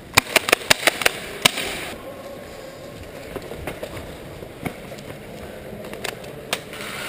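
Airsoft gunfire: a fast string of sharp cracks, about five a second, in the first second and a half, then single shots now and then.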